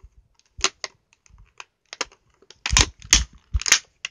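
Plastic toy packaging clicking and knocking as it is pried and tugged at to free a small cat figure stuck inside: a run of sharp clicks and taps, the loudest of them bunched together near the end.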